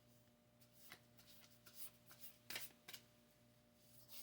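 Faint rustling and flicking of tarot cards being shuffled and handled, several soft separate card sounds over a faint low steady hum.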